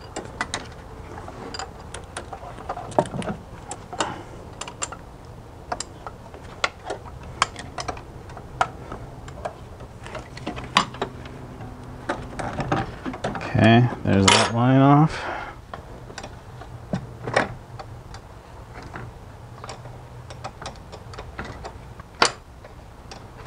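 Wrench on the mounting nuts of a BMW E46 DSC hydraulic unit, with irregular metallic clicks and taps as the nuts are loosened and pulled off. A short murmured voice comes about fourteen seconds in.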